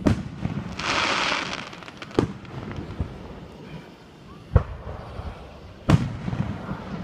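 Fireworks display: sharp bangs of bursting shells a second or two apart, the loudest about four and a half and six seconds in, with a loud burst of hiss about a second in.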